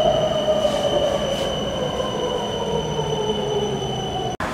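Inside a BTS Skytrain EMU-A2 car, an electric whine falls steadily in pitch as the train slows into a station, with a steady high tone over it. A brief dropout cuts the sound near the end.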